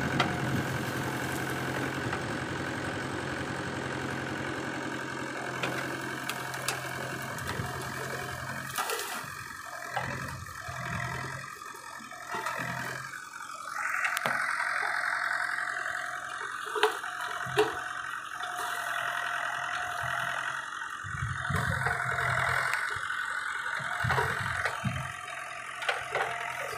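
Tractor diesel engine running a Bull tractor-mounted backhoe as its hydraulic arm digs and pushes into brush. The engine runs steadily at first, then its note shifts and picks up about halfway through as the hydraulics take load, with two sharp knocks shortly after.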